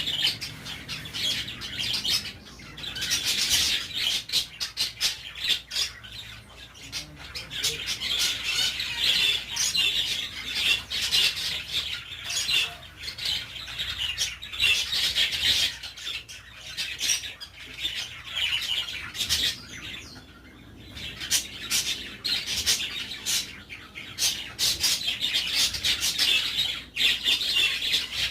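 Budgerigars chirping and chattering almost without pause, many quick high notes overlapping, with a few short lulls.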